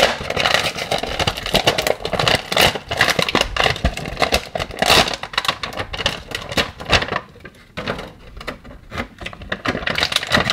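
Packaging being opened by hand: a dense run of crinkles and clicks, easing off for a moment about seven to eight seconds in.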